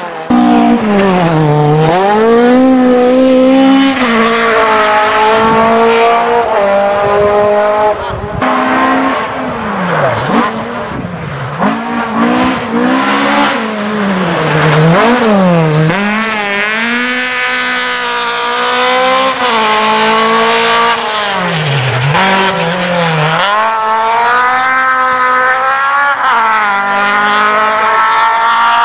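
Toyota Corolla GT rally cars' engines revving hard at full throttle through several stage passes. The pitch climbs steadily and drops sharply at each gear change or lift, many times over.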